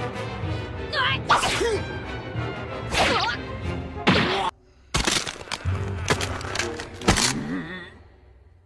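Cartoon fight sound effects over background music: several sharp whooshes and hits, a brief drop-out about halfway through, then a fade near the end.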